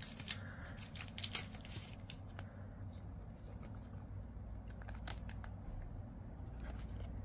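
Faint rustling and light clicks of a thin clear plastic card sleeve being handled as a trading card is slid into it.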